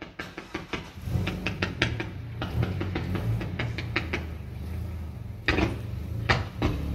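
Fireworks display going off in the distance: a rapid run of bangs and crackles over a steady low rumble, with two louder bangs about five and a half and six and a half seconds in.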